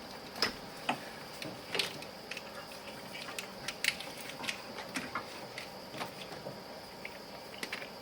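Irregular light clicks and knocks of hand tools and parts being handled while getting at the spark plugs, over a steady high insect trill such as crickets.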